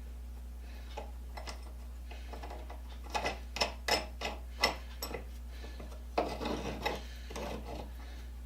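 Small metal parts of a hand-crank bench grinder's tool rest (cast iron rest, carriage bolt, washer and wing nut) being handled, a run of light clinks, knocks and scrapes, mostly between about three and seven seconds in.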